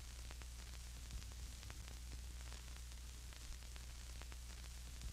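Faint static: a steady low electrical hum under a hiss, with scattered crackling clicks throughout.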